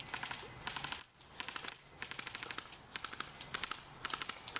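Electric airsoft guns (AEGs) firing a string of short full-auto bursts. Each burst is a quick rattle of clicks lasting about half a second, with brief pauses between them.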